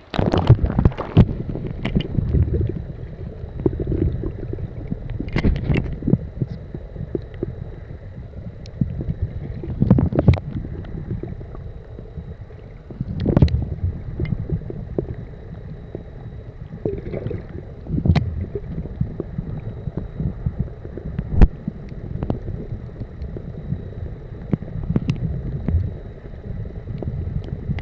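Muffled underwater rumble of seawater sloshing around a camera held just below the surface, with scattered sharp splashes and knocks every few seconds.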